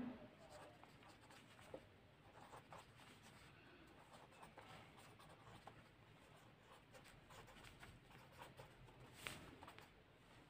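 Faint scratching and light ticking of a pen writing on paper, with one sharper tick about nine seconds in.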